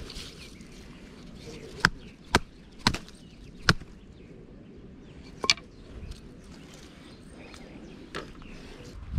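Sharp knocks of a wooden fish priest striking a caught trout on the head to kill it: four quick blows within about two seconds, then one more a couple of seconds later.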